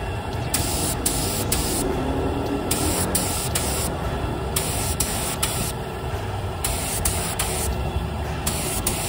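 Air spray gun spraying paint in repeated short bursts, its hiss starting and stopping each time the trigger is pulled and released.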